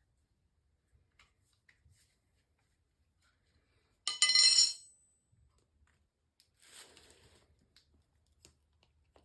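A metal tool clattering: a loud, ringing metallic clink about four seconds in, then a softer scraping sound about two and a half seconds later.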